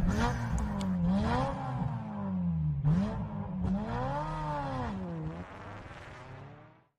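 An engine revving up and falling back about four times, each rev a smooth rise and fall in pitch, fading out near the end.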